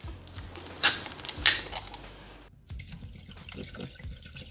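A plastic bottle of cold sparkling water is handled and opened with two short sharp noises, then the water is poured into a stainless steel bowl, splashing and running unevenly.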